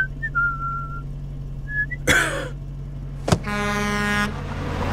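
Cartoon sound effects over the low steady hum of an idling petrol car. A person whistles a tune for about the first second. About two seconds in comes a sudden rushing gasp-like sound, then a sharp knock a little after three seconds, then a held tone lasting about a second.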